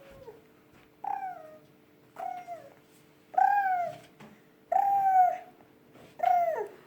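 Baby making five short, cat-like squealing calls, about a second apart, each falling in pitch like a meow.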